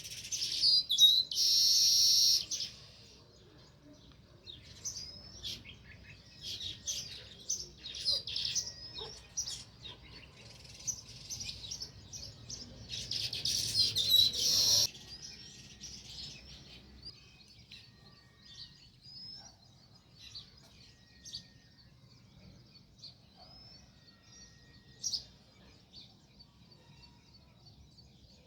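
House sparrows chirping: two loud spells of dense chattering, one about two seconds in and another from about thirteen to fifteen seconds, then sparser single chirps.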